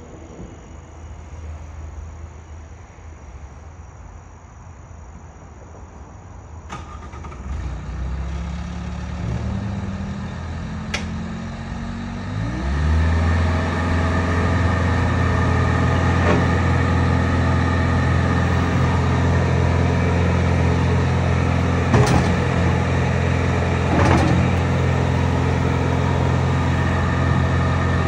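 Diesel engine of a 2022 Bobcat S66 skid steer. It comes in low about a quarter of the way in, rises in pitch nearly halfway through, and then runs steadily at a higher speed. A few sharp knocks sound over it later on.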